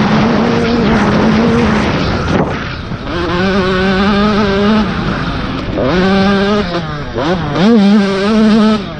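Husqvarna TC 85 single-cylinder two-stroke motocross engine under hard throttle, heard onboard with wind and rushing noise. The revs drop briefly about two and a half seconds in, hold steady, then sweep sharply up twice near the end as the rider opens the throttle again.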